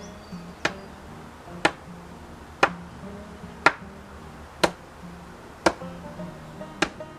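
Sledgehammer blows on a fence post, seven sharp strikes about a second apart, the last slightly delayed. Background music runs under them.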